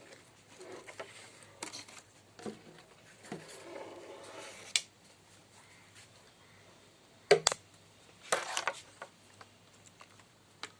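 Handling sounds as a homemade excavator model is set onto its undercarriage: scattered knocks, clicks and short scraping. The sharpest knocks come about seven seconds in and again about a second later.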